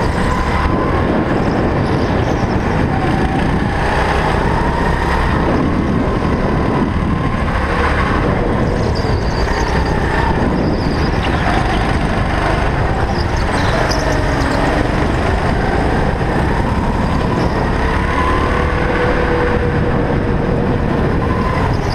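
Go-kart engine running hard on the track, its pitch rising and falling again and again as the kart accelerates out of corners and eases off into them.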